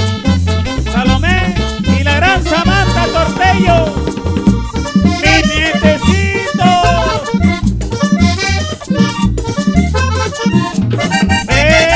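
Colombian tambora group playing live: an instrumental passage with a steady pounding low drum beat and a melodic line sliding up and down over it, with no singing.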